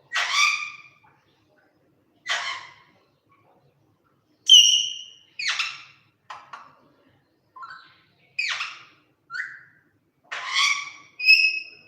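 Pet parrot calling: about a dozen short squawks and chirps with brief pauses between them, including two clear whistles.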